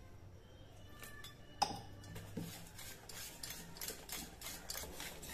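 Wire whisk beating thick chickpea-flour batter in a stainless steel bowl: a fast run of faint strokes of the wires scraping and tapping the bowl, with one sharper clink about one and a half seconds in.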